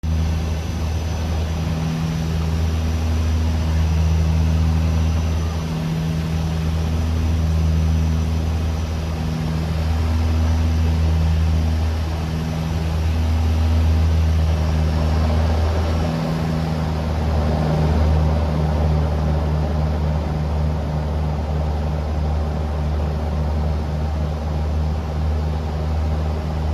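Cabin drone of a Dash 8-100 twin turboprop: the propellers' low, steady hum swelling and fading in a slow beat every few seconds. About two-thirds of the way through, the drone takes on a faster flutter.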